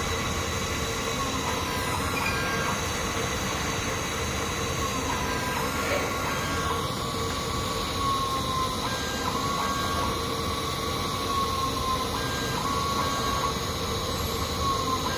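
Automatic LED soldering machine running: a steady mechanical hum with a motor whine that slowly rises and falls in pitch every couple of seconds.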